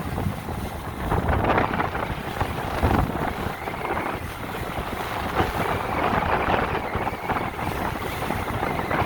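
Wind buffeting the microphone over the rush and splash of sea water along a moving whale-watching boat's hull, a steady, uneven noise.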